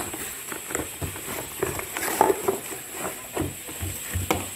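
Cardboard packaging of a power-drill box being handled: irregular rustles, scrapes and light knocks as the cardboard insert is lifted out and the cord and contents are pulled from the box.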